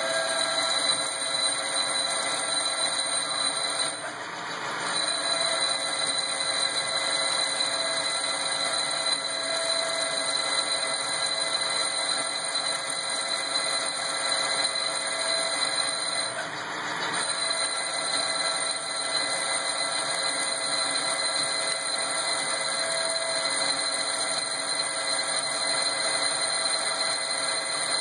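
Grizzly CNC lathe running a program that takes the finish cut on a 5-inch-gauge locomotive wheel: a steady whine from the machine with the hiss of the cut and flood coolant. The sound eases off briefly twice, about 4 seconds in and again about 16 seconds in.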